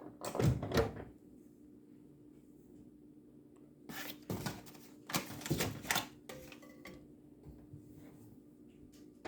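Knocks and clatter of things being handled at a microwave, in two short bouts (one near the start, another from about four to six and a half seconds in), over a steady low hum.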